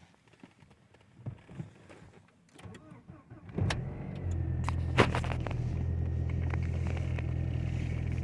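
A Volkswagen Passat's 1.8T four-cylinder turbo engine starting about three and a half seconds in and then idling steadily. A few faint clicks come before it.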